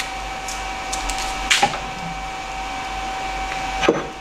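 Steady whirring hum with a constant thin whine from running workshop machinery, with a sharp click about a second and a half in and a metallic tap near the end as a screwdriver prods aluminium chips on a freshly milled aluminium plate.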